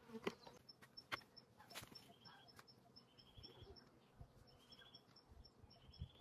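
Near silence: faint outdoor ambience with a high chirp repeating about four times a second and a few short trills, plus a handful of soft clicks and scrapes from hands digging in soil.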